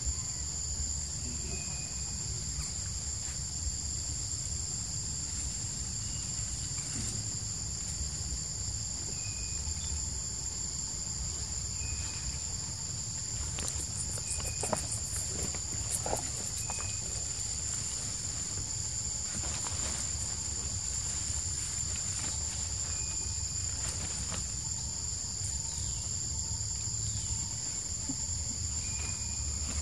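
Steady, high-pitched insect chorus, with a short faint chirp every few seconds and a few soft clicks about halfway through.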